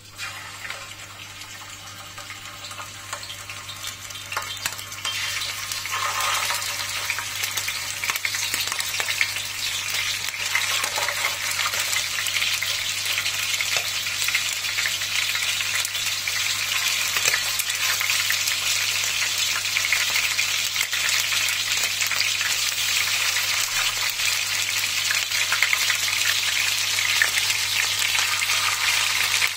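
Chicken frying in oil in a sheet-iron sac pan, a dense sizzle that grows louder over the first five seconds or so and then holds steady.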